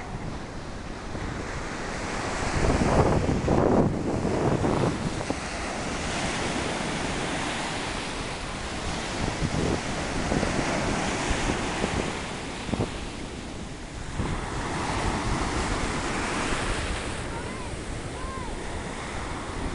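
Ocean surf breaking and foam washing up over the sand, with wind rumbling on the microphone, loudest a few seconds in.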